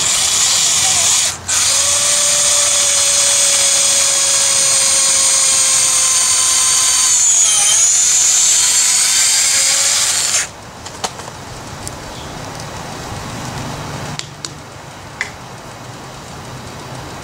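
Cordless drill boring a hole into the old handle stub wedged in the eye of a sledgehammer head. The motor runs steadily with a short stop about a second and a half in, its pitch dips briefly around eight seconds as the bit loads up, and it stops about ten seconds in, leaving a few light clicks.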